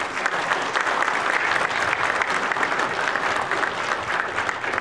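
Congregation applauding: many people clapping in a dense, steady patter that starts to die away near the end.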